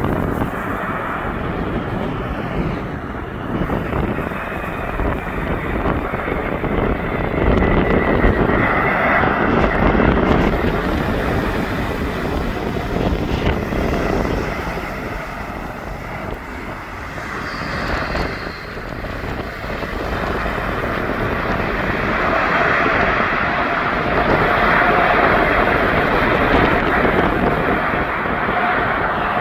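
Airbus A380's four jet engines running, a dense roar that swells and fades, with gusting wind buffeting the microphone. A steady whine joins in over the last several seconds.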